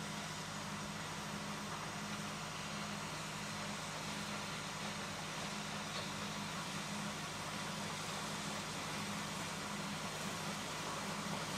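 A standing narrow-gauge steam locomotive, Palmerston, simmering with steam hissing steadily from it, over a steady low hum that pulses about twice a second.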